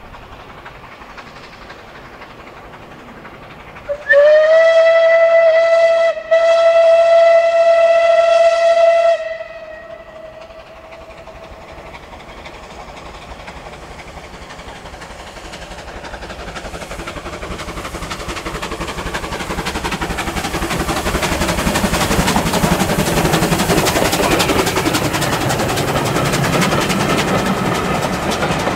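Steam whistle of West Country Class Pacific 34092 City of Wells, sounded as two single-note blasts about four seconds in, a short one and then a longer one, together lasting about five seconds. After the whistle the train's running noise grows steadily louder as it draws near.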